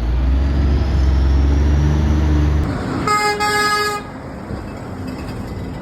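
A truck passes close by with a heavy, deep engine rumble, then an air horn blows one note for about a second, three seconds in, with a brief catch early in the blast.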